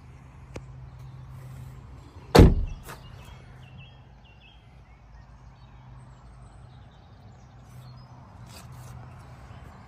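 A car door shutting with a single heavy thump about two seconds in, over a steady low hum.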